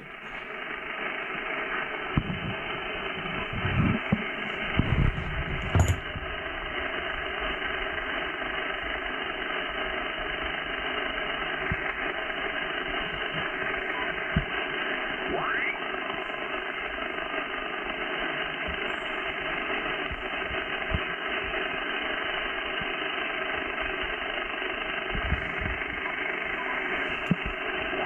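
Steady static and hiss from an Icom IC-7300 transceiver's speaker on the 11-metre band in upper sideband, cut off above about 3 kHz by the receive filter, with a thin rising whistle about halfway through. A few soft knocks in the first few seconds.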